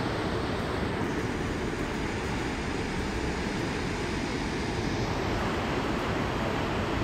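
Fast, muddy river water churning through white-water rapids: a steady, deep rushing noise.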